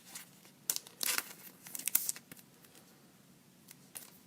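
Hockey trading cards being handled: a few short bursts of crinkling and rustling, the busiest about a second in.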